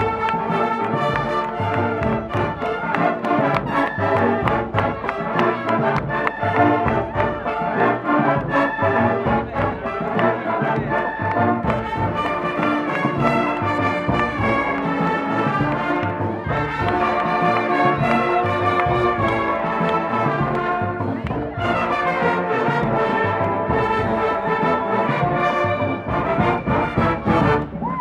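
Marching band playing a tune: brass led by sousaphones and trumpets, with woodwinds, over a steady beat.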